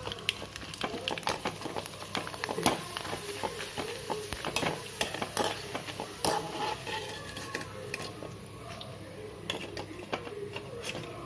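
Sun-dried rice crisps (koozh vadagam) frying in hot oil, with many sharp crackles over a steady sizzle, and a spoon stirring in the pan.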